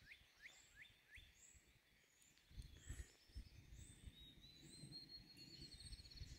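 Near silence with faint birdsong: a quick run of rising chirps at the start, scattered short high notes, and a rapid trill in the second half, over low rumbling on the microphone.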